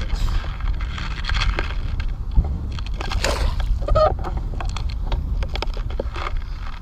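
Wind buffeting the microphone of a GoPro mounted inside a Cuban yo-yo handline as it is handled while a hooked fish is pulled in, with scuffing rustles and a sharp knock about two and a half seconds in.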